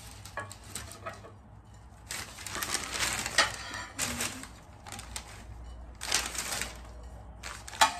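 Packing wrap rustling and crinkling in irregular bursts as ceramic plates are pulled out and unwrapped by hand, the longest burst about two seconds in.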